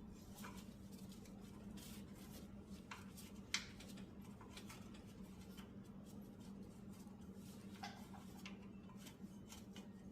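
Faint scattered clicks and taps of small carburetor parts being handled and fitted, one sharper click about three and a half seconds in, over a steady low hum.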